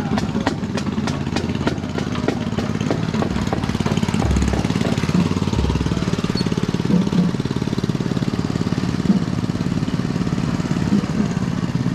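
Small engines of miniature parade cars running as they drive past. A rapid drumbeat, about four hits a second, fades out over the first three seconds.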